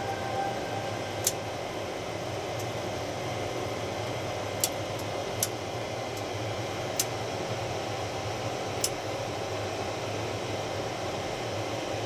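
Steady fan hum of bench test equipment, with several sharp clicks spread through it as the signal generator's controls are turned up for a 20 Hz full-power test.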